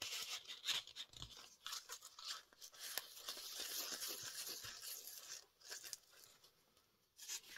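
Paper rustling and crinkling with small clicks and scrapes as hands handle a small paper envelope and tag in a handmade journal. The rustling is dense for the first five seconds or so, then thins out to a few soft taps.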